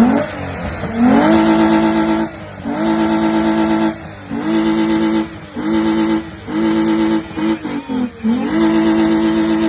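Car exhaust with the engine revved hard again and again. Each rev climbs quickly, is held at a steady high pitch for around a second, then drops off, about seven times in a row.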